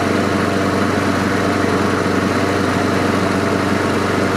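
Troy-Bilt lawn mower engine running steadily at a constant speed, with no surging, after Marvel Mystery Oil was put through its carburetor.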